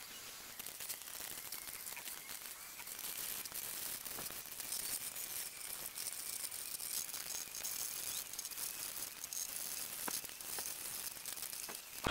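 Faint rustling and scraping with scattered light clicks, from gloved hands working over a plywood kayak hull.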